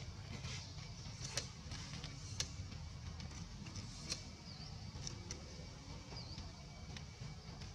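Outdoor ambience: a steady low rumble with scattered light clicks and crackles, and two faint short high chirps in the middle.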